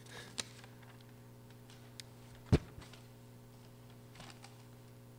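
Light clicks and one sharp thump about two and a half seconds in, over a steady low hum.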